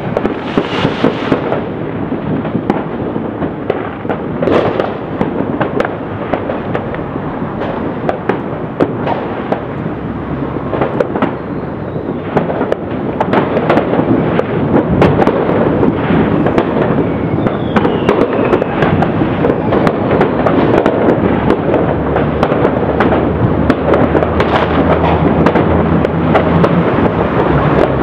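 Many fireworks and firecrackers going off at once: a dense, continuous crackle of bangs and pops that grows denser and louder about halfway through, with a short falling whistle now and then.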